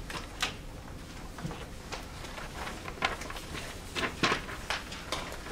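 Scattered footsteps and light knocks, the sharpest a few close together about three to four and a half seconds in, as people move about a podium.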